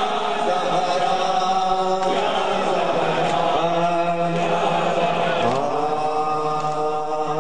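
Men's voices chanting a noha, a Shia lament, in long, drawn-out held notes.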